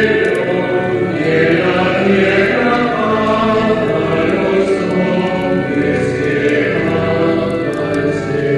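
Choral music: voices in a chant-like style holding long notes, each chord sustained for a second or more.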